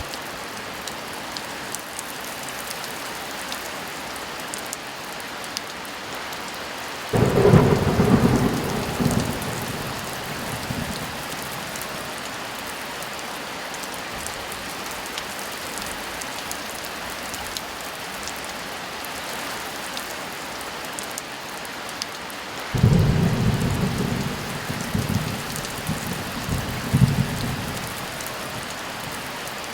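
Heavy rain falling steadily, with two claps of thunder, one about seven seconds in and another about twenty-three seconds in, each rumbling on for a few seconds; the second rolls several times before fading.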